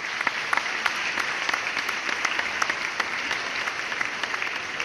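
Audience applause: many hands clapping in a dense, even patter.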